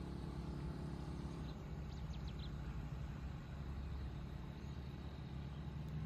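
Low, steady rumble of a running engine, with a steady hum, and a few faint high-pitched ticks about two seconds in.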